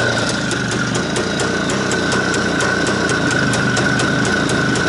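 IZh Planeta's single-cylinder two-stroke engine running steadily while it warms up after a cold start, with a steady high ringing tone and regular sharp ticks. It runs strained because its muffler is clogged.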